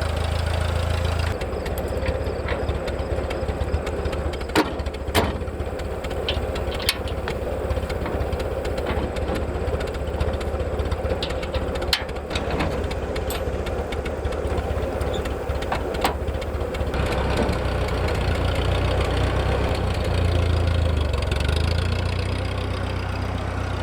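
1964 Massey Ferguson 35 Deluxe tractor engine running steadily, with scattered sharp metallic knocks and clanks.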